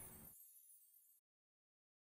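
Near silence: the last ring of the song's music dies away in the first fraction of a second, then dead digital silence.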